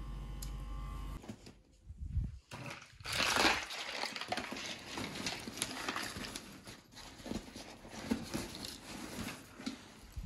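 A steady room hum stops about a second in. Then comes the irregular rustling, scraping and bumping of a fabric backpack being handled as a plastic shaker bottle is pushed into it.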